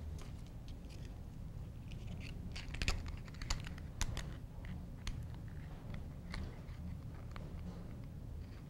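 Faint handling of a micro RC helicopter's plastic canopy as it is fitted back onto the frame by hand, with a few sharp little plastic clicks, the loudest about three to four seconds in.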